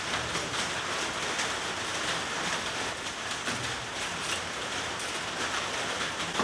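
Steady hissing patter with many small, irregular ticks.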